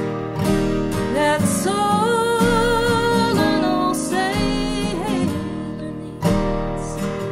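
Two acoustic guitars playing together, picked and strummed. A woman sings a held, wavering melody line over them from about a second in until about five seconds in.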